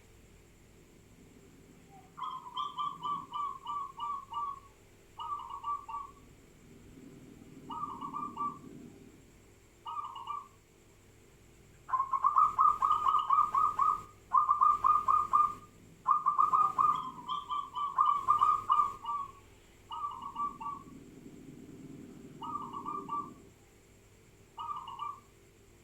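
Zebra doves (perkutut) cooing: repeated rapid, pulsed phrases, each one to two seconds long, with louder, back-to-back phrases from more than one bird around the middle.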